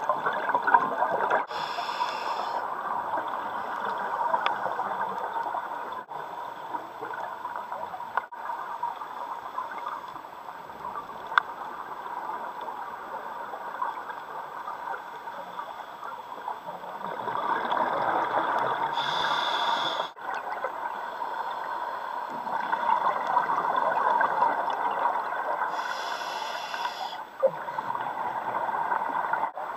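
Scuba diver's regulator breathing underwater: a short hiss on each inhale and a few seconds of gurgling exhaust bubbles on each exhale, in slow breaths.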